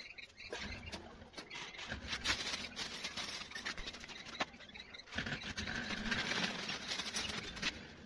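Metal wire mesh of a bird cage being handled: irregular light clicks and rattles, with stretches of scratchy rustling about two seconds in and again from about five seconds in.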